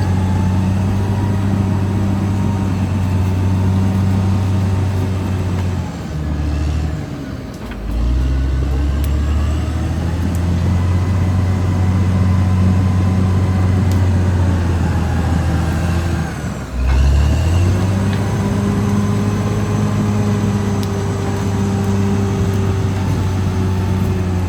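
Caterpillar D6R XL bulldozer's diesel engine running steadily under load. Its note dips and recovers twice, once about a quarter of the way in and again about two-thirds of the way in.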